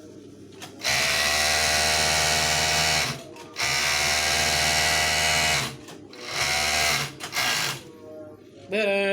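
Overlock (serger) machine's motor running in bursts as fabric is fed through it: two runs of about two seconds each, then two short spurts.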